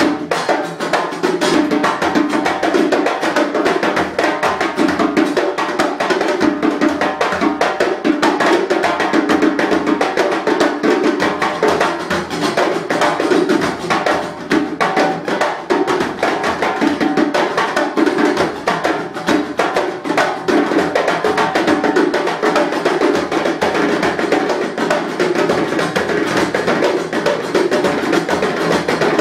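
Two djembes hand-drummed in a busy, driving rhythm over a strummed acoustic guitar: an instrumental passage played live.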